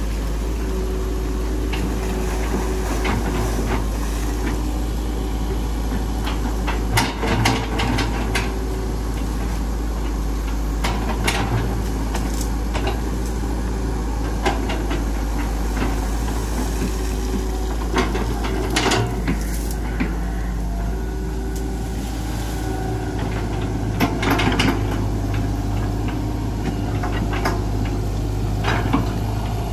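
Hitachi EX120 hydraulic excavator's four-cylinder diesel engine running steadily while it digs, with scattered clunks and scrapes from the working bucket and arm.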